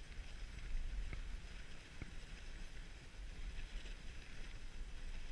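Dog sled gliding steadily over a packed snow trail: an even hiss of the runners on snow over a low rumble of wind on the microphone.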